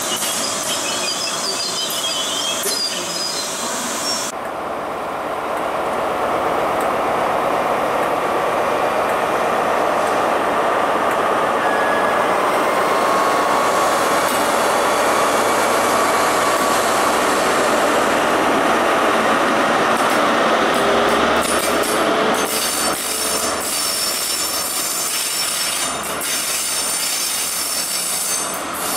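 ScotRail Class 43 HST coaches rolling past, with steady wheel-on-rail noise and wheel squeal. In the last third the diesel power car draws near and adds a low engine drone.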